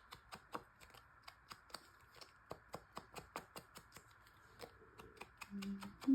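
Quick, irregular light tapping of an ink blending tool dabbing Vintage Photo distress ink onto the edges of a card, several taps a second. Near the end come two short low hums, the second the loudest sound.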